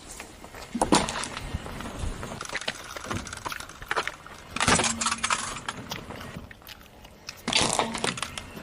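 Crispy fried chicharon bulaklak (pork ruffle fat) crunching and crackling as it is broken and bitten: three loud crunches, about a second in, around the middle and near the end, with smaller crackles between.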